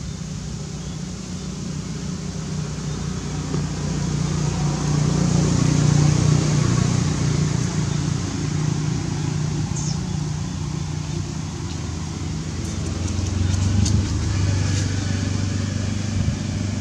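Steady hum of motor vehicle engines, swelling about five seconds in and again near the end, with a few light clicks late on.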